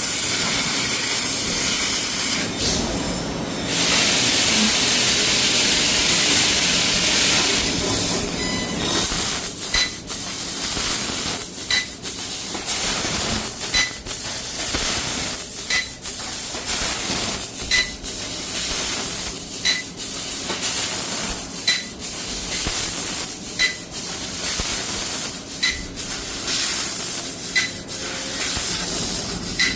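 CNC laser cutting machine working 6 mm plate: a steady hiss of gas blowing through the cutting head. From about ten seconds in, a sharp click with a short high beep comes every two seconds, with hissing between.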